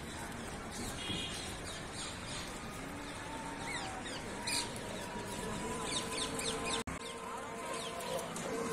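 Outdoor ambience: clusters of short, high falling chirps over a steady background hiss, with a faint steady hum.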